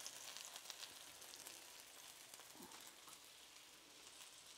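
Faint, steady sizzling of fritters frying in canola oil in a frying pan, with small crackles.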